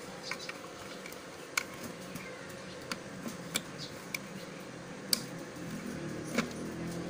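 Scattered light clicks and taps, about a dozen, from plastic parts of an opened radio cassette player being handled during reassembly, over a faint steady hum.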